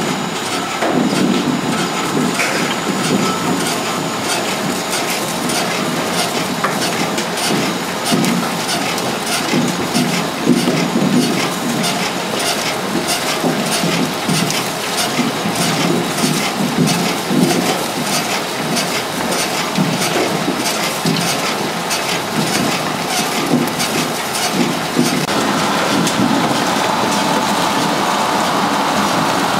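Garlic soil-cleaning line running, with a steady, dense clatter of garlic bulbs and soil clods tumbling through the machine.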